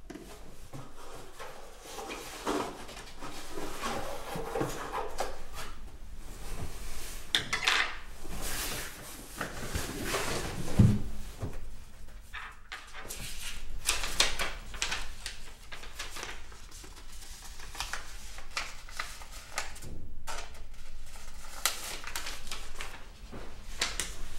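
Sheets of paper rustling and crinkling as they are handled and creased flat on a tabletop, in many short irregular strokes. A single dull thump, the loudest sound, comes about eleven seconds in.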